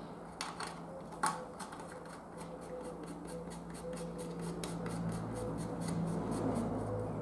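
Ratcheting driver clicking in a steady run of quick, even clicks as rocker cover nuts are wound down on an engine, with one sharper click about a second in.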